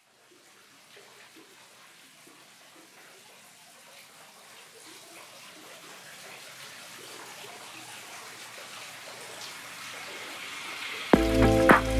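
A steady, water-like rushing hiss with faint scattered drips, growing slowly louder. Near the end, music cuts in abruptly with a deep bass and a beat.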